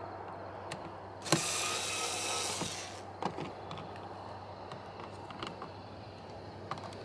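Cordless drill driving a screw in one run of about a second and a half, starting with a sharp click; a few light clicks and taps follow.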